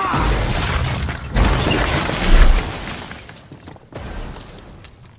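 Film sound effect of a dune buggy crashing into a rocky canyon: a dense crash and breaking of rock, with heavy booms about one and a half and two and a half seconds in, the second the loudest, then falling debris fading away.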